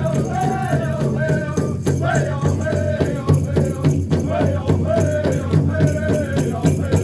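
A Native American drum group singing a hoop dance song: voices in a wavering melody over a steady, even drumbeat.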